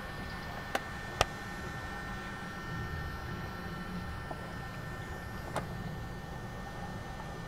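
Underwater swimming-pool sound: a steady low rumble with two faint steady high tones over it. Sharp clicks break through it, two close together about a second in and one more about five and a half seconds in.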